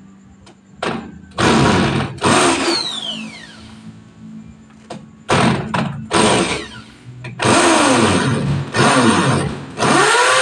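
Corded electric drill boring into a wall in about seven short bursts, the motor whining down in pitch after each one and revving up and down again near the end.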